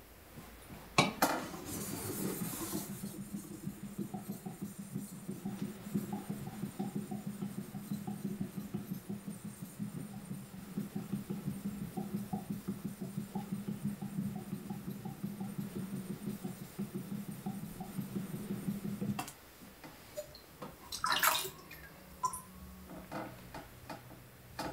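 Gyuto kitchen knife blade being stroked back and forth on a wet Koma Nagura natural sharpening stone: a rhythmic wet scraping at about two to three strokes a second that stops about nineteen seconds in. A few light clicks follow as the blade is handled.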